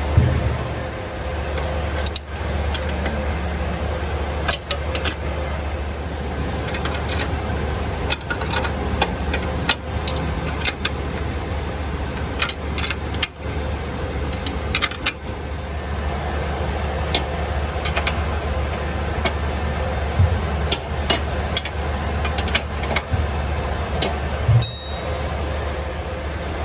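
Scattered metal clinks and knocks of hand tools and belts being handled on a belt-driven air handler, over a steady low machinery hum.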